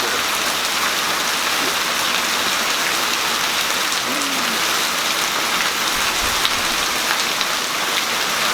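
Rain falling steadily: an even hiss with fine, scattered drop ticks.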